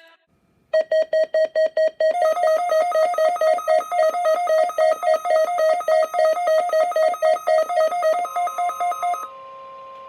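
Emergency Alert System weekly test tones: a rapid string of loud electronic beeps, about six a second, with a second, higher tone joining the pattern about two seconds in. Near the end the beeping stops and a quieter steady tone takes over.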